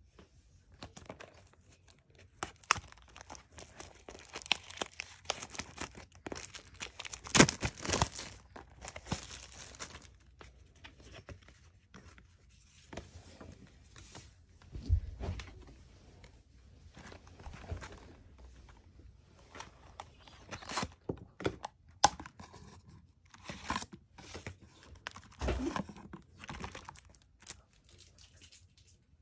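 Foil wrapper of a Pokémon trading card booster pack being torn open and crinkled, in irregular bursts of tearing and rustling, loudest about seven to eight seconds in, with a few sharp handling knocks later on.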